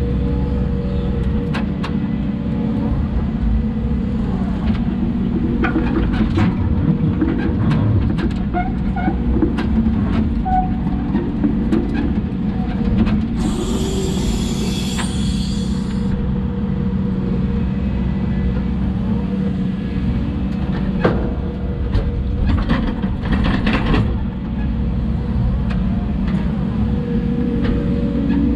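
Hidromek 140 excavator's diesel engine running steadily under work load, with scattered knocks and clatter of the bucket and soil. About halfway through comes a hiss that lasts two or three seconds.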